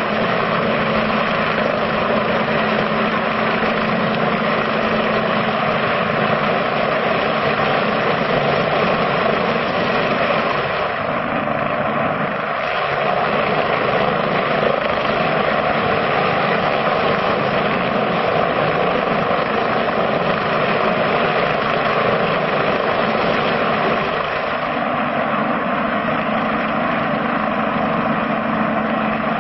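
Helicopter hovering overhead, its rotor and turbine giving a steady, unbroken noise.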